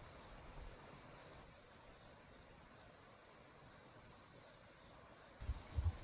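Autumn grass insects such as crickets chirring in a steady, high-pitched, unbroken trill over the faint rush of a mountain stream. Near the end a low, gusty rumble suddenly cuts in and is louder than the insects.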